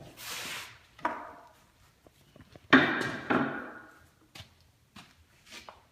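Knocks and thumps of wood and tools being handled and set down, the loudest a sharp thump about three seconds in followed quickly by a second, with a few light taps near the end.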